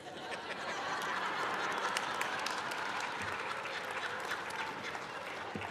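Audience applause that builds over the first second, then holds steady as a dense patter of claps.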